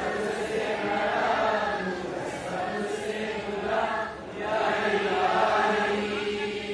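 A large group of schoolchildren chanting together in unison, with a short break about four seconds in before the next line.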